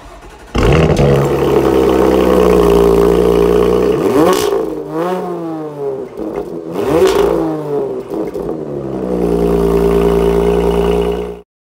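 A 2021 Porsche Macan Turbo's twin-turbo V6 heard at the exhaust tips on a cold start. It fires about half a second in and settles into a steady idle. Two quick throttle blips rise and fall in pitch around the middle, then it goes back to a steady idle and stops abruptly near the end.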